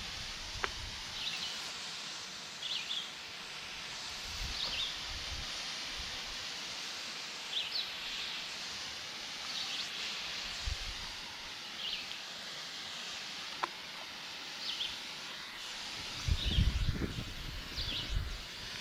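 Outdoor ambience: a steady faint hiss with short high chirps every second or two, like a small bird calling. Low rumbling comes in near the end.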